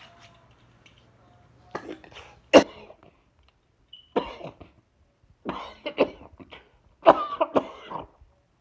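A person coughing repeatedly in short fits, about five bouts, with the sharpest cough about two and a half seconds in.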